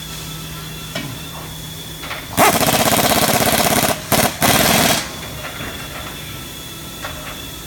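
Air-powered tool hammering in rapid bursts against the steel frame of a manufactured-home floor: one long rattling burst of about a second and a half, then a brief one and a second short burst, over a steady factory hum.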